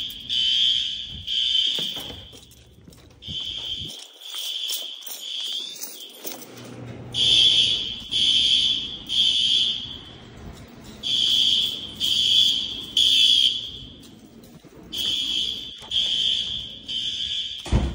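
Building fire alarm horns sounding the temporal-three evacuation signal: three blasts, a pause, then three more, repeating about every four seconds.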